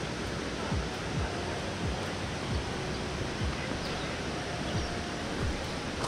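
Steady rush of falling and flowing water from a forest waterfall and stream, with short low thumps scattered through it.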